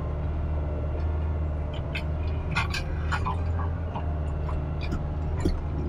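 Kubota RX-503S mini excavator's diesel engine running steadily as it digs soil, with scattered sharp clicks in the second half and one louder knock near the end.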